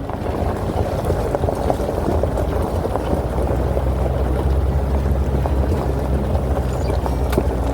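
A vehicle's engine running steadily: a low drone with rushing noise.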